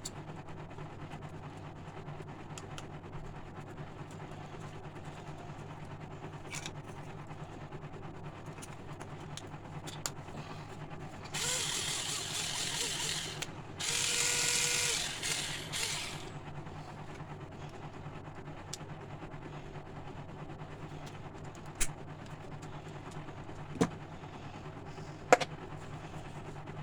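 Small cordless drill-driver running in two short bursts of about two seconds each, a test run on its rebuilt battery, over a steady low hum; a few sharp clicks follow later.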